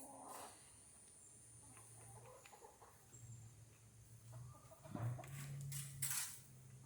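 Backyard chickens clucking softly, with a couple of louder rustling noises about five to six seconds in.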